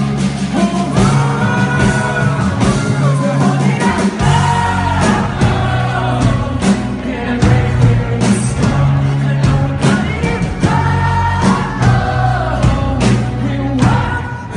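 Live rock band performance: a male lead singer over bass, guitar and a steady drumbeat, heard from the audience.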